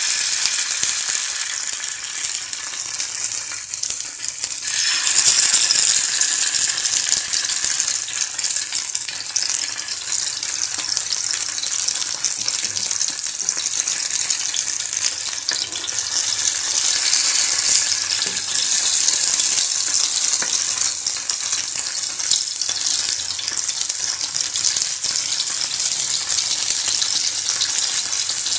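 Masala-coated Indian mackerel (ayala) shallow-frying in hot oil on a dosa griddle: a steady sizzle and crackle of oil around fish just laid in, swelling louder about five seconds in.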